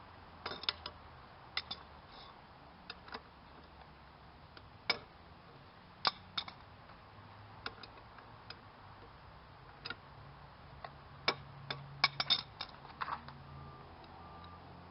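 Socket ratchet clicking and metal tools clinking as the nuts holding a mower blade are worked loose: scattered sharp clicks, with a quick run of them near the end.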